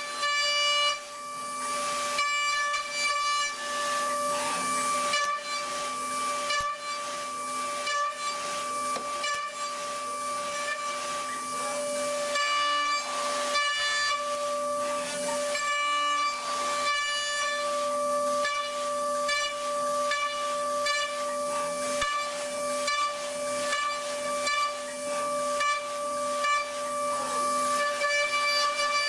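CNC milling machine cutting metal: a steady high-pitched whine with several overtones over a constant hiss, and a fainter lower tone that comes and goes.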